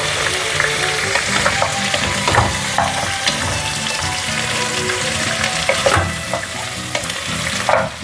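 Beef ribs sizzling and frying in hot oil in a pressure cooker pot, browning. A wooden spoon stirs them, with scattered scrapes and knocks against the pot, a few louder ones near the end.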